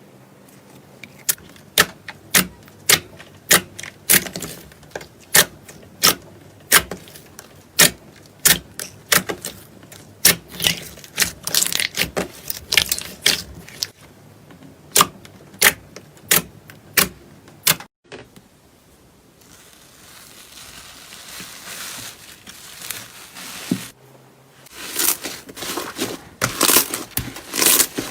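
Slime being pressed and squeezed by hand, giving sharp wet pops and clicks about one or two a second. About two-thirds of the way in it cuts to a softer, hissing squish, and near the end to dense crackling and crinkling as a crunchier slime is worked.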